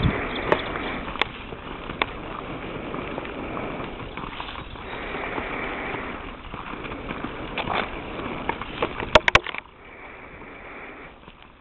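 Horse's hooves on a sandy arena: a few irregular thuds and clicks under a steady rushing noise that drops away about ten seconds in.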